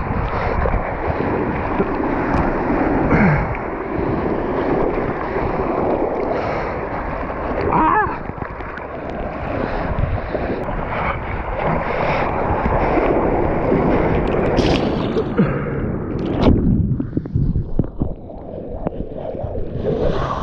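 Ocean surf breaking, with wind buffeting the camera's built-in microphone. About three-quarters of the way through, the sound goes dull and muffled for a couple of seconds.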